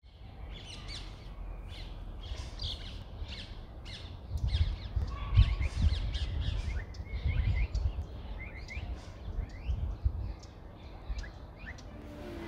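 Birds chirping: many short, quick calls, some rising and some falling in pitch, about two or three a second, over a low rumble that swells in the middle.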